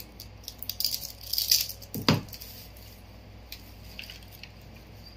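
Light clicks and rattling from small phone parts and tools being handled on a repair mat, with one sharp knock a little after two seconds.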